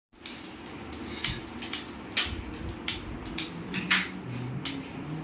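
Irregular sharp clicks and clatter, about two a second, over a low steady hum.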